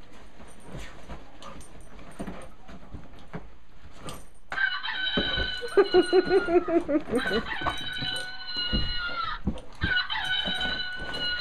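A dog's plush toy chicken sounding off with a recorded chicken call, twice. First comes a long held call with a run of quick falling notes under it, about four and a half seconds in, then a shorter call near the end.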